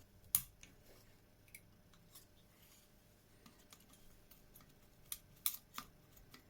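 Sharp little clicks and snips from handling an LED and a headlight switch's small parts by hand, with faint handling noise between. One loud click comes just after the start and a quick run of three comes about five seconds in.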